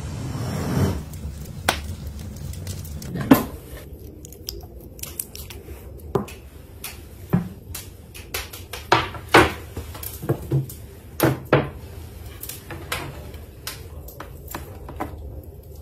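A glass baking dish handled and set down on a wooden board: a string of sharp knocks and clinks, more than a dozen, spread over several seconds, after a brief rush of noise at the start.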